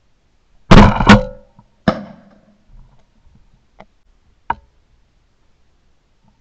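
Two shotgun shots in quick succession about a second in, fired at a flying dove, followed by a sharper crack and a few lighter knocks from the gun being handled.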